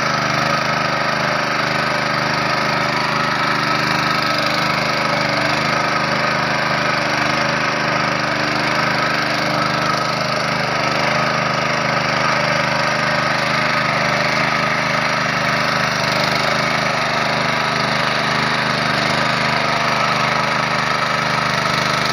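Honda GX160 5.5 hp single-cylinder four-stroke engine running steadily and without a break while working a rice field.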